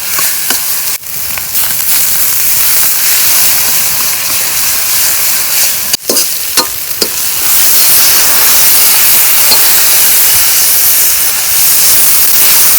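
Food frying in a cooking pot with a steady loud sizzle, with a few light scrapes of stirring. The sizzle breaks off for an instant twice, about one second in and about six seconds in.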